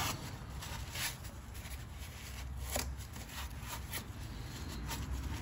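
Faint rustling and handling noise, with a few soft brushing sounds spaced out over several seconds.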